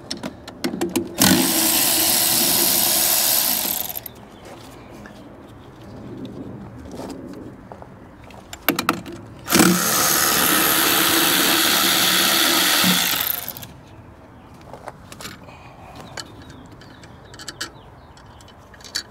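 Cordless electric ratchet running twice, each time for about three seconds, backing out the 10 mm bolts that hold a hydraulic case drain filter head. There are scattered clicks of tool handling between and after the runs.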